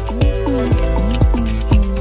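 Electronic background music with a steady beat of about two a second, a held bass and sliding synth notes that glide down and back up.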